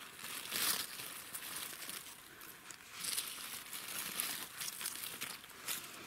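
Dry fallen leaves rustling and crinkling in irregular bursts as a hand rummages through the leaf litter around mushrooms, the loudest burst a little under a second in.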